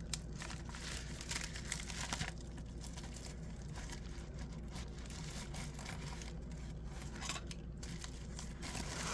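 Faint crinkling and rustling of packaging being handled and opened, with a few soft irregular crackles over a low steady hum.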